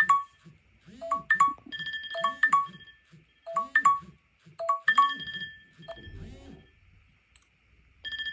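Several smartphone timer alarms ringing at once, their chime-like melodies repeating about every 1.2 seconds, until they stop about six seconds in with a short low rumble.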